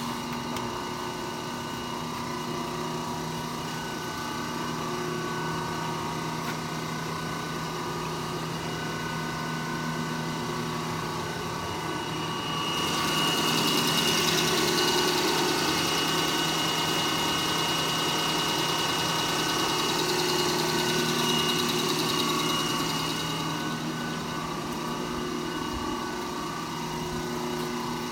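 A large 1958 Monarch engine lathe running under power, its motor and geared headstock giving a steady hum with the spindle turning slowly at about 10 RPM. A louder hiss with a high whine joins in for about ten seconds in the middle, then drops away.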